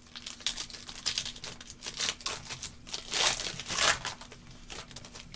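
Wrapper of a trading-card pack crinkling and tearing as it is opened by hand, in irregular crackles with louder rips about two, three and four seconds in.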